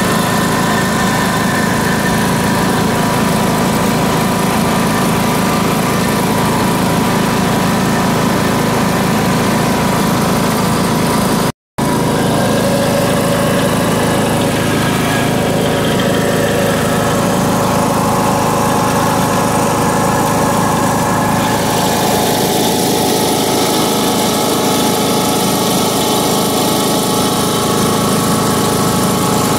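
Troy-Bilt Pony riding mower's engine running steadily while the mower is driven. The sound breaks off for an instant about twelve seconds in, and its tone shifts slightly about twenty-one seconds in.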